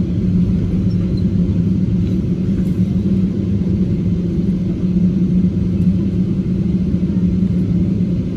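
Cabin noise of a Boeing 777-200ER taxiing: a steady low rumble from the engines and the wheels rolling on the taxiway, with a constant low hum.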